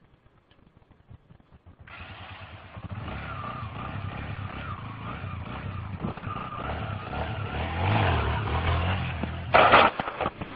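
Small motorcycle engine running as the bike rides off, getting louder over several seconds. A loud sudden noise about a second before the end.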